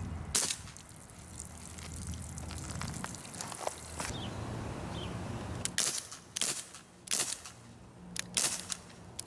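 CO2 BB pistol firing: one sharp pop about half a second in, then a quick string of pops about two a second from around six seconds in.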